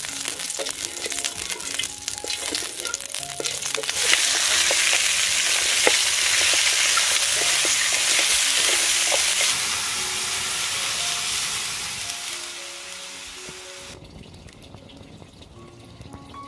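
Lard and chunks of meat sizzling and frying in a hot iron wok while being stirred. The frying is loudest from about four seconds in and fades out near the end.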